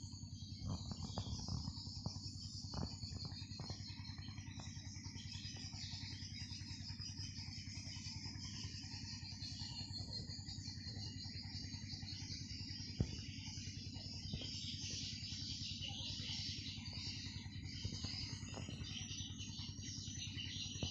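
Edible-nest swiftlets' dense, continuous high twittering chorus, from the birds and the swiftlet lure call played to draw them, over a steady low rumble. A single sharp click comes about halfway through.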